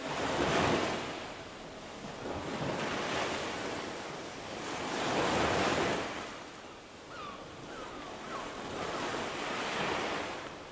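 Ocean waves washing in and receding, a hissing surge that swells and fades four times, with a few faint short chirps in the middle.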